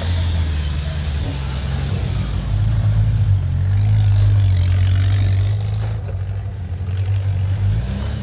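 Jeep Wrangler's engine running under load as the vehicle crawls over a muddy off-road track. It gets louder for a few seconds in the middle, then settles back to a steady drone.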